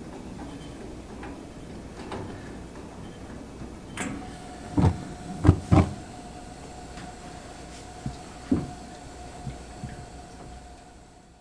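Vent-free propane log fireplace being lit: sharp clicks as the control knob is worked, then a few loud low thumps around the middle as the burner catches. After that a faint steady tone carries on while the flames burn.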